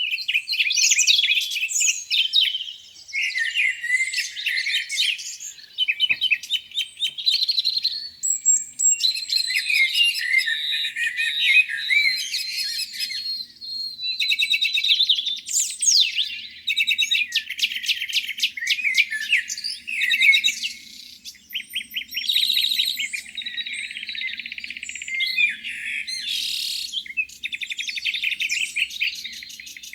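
Many songbirds singing at once in a spring morning chorus: overlapping trills, chirps and whistles with no pause.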